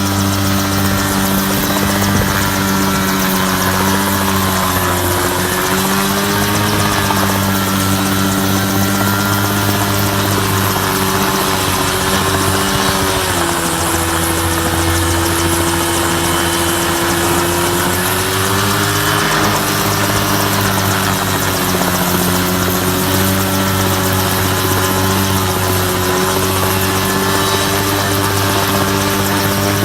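Small grass-cutter engine powering a homemade helicopter, running steadily at high speed, its pitch wandering slightly up and down.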